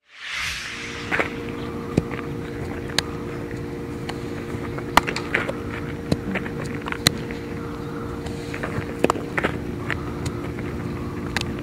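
A steady motor hum made of several held tones, with scattered sharp clicks and knocks over it.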